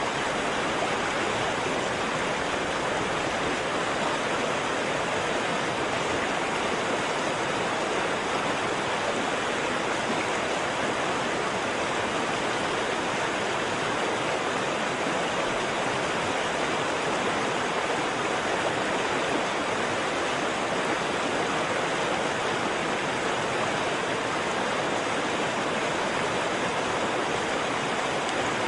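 Waterfall: water falling and rushing in a steady, unchanging roar.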